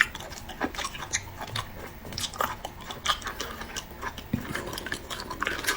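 Close-miked chewing and biting of food, with irregular wet clicks and smacks from the mouth.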